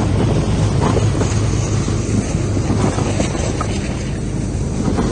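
Steady low drone of a vehicle in motion, with rattling and wind noise.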